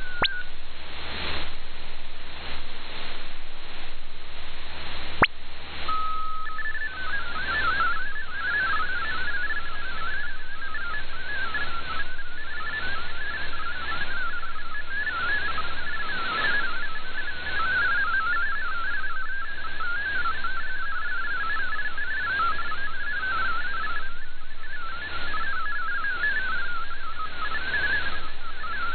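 MFSK32 digital data signal received over shortwave: a warbling band of rapidly hopping tones over steady band noise that fades in and out. A sharp click and a brief steady tone come about five seconds in, and the warbling starts about seven seconds in.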